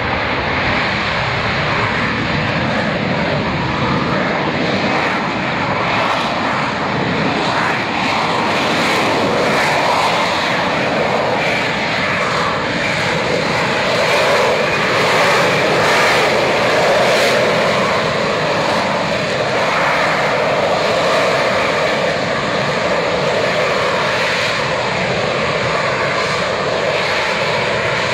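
AV-8B Harrier jump jet's Rolls-Royce Pegasus vectored-thrust turbofan running at high power while the jet lifts off and holds a hover: a loud, steady jet rush, swelling slightly about halfway through.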